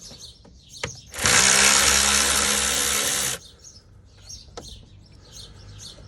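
Power drill-driver with a Torx T30 bit spinning for about two seconds, undoing a cooling-fan bolt on a radiator, then stopping abruptly.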